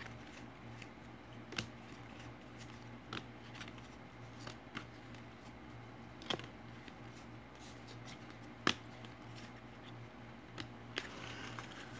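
Faint, sharp clicks and taps of trading cards being handled and set down into piles on a table, about eight of them a second or two apart, over a low steady hum.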